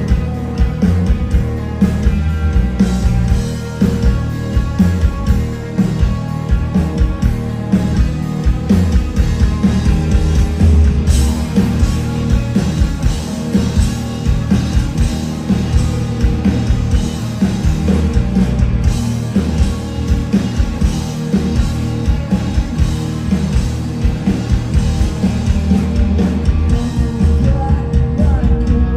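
Live rock band playing: electric guitars, bass guitar and drums, with singing at times.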